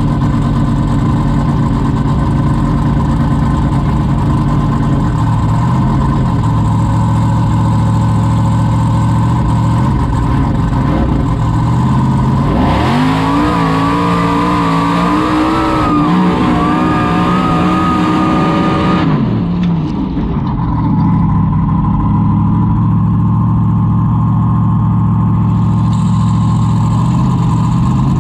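Formula Offroad buggy's engine heard from inside the cockpit, running steadily at low revs. About 13 seconds in it is revved hard and held high for about six seconds as the buggy accelerates, then drops back to a steady low run.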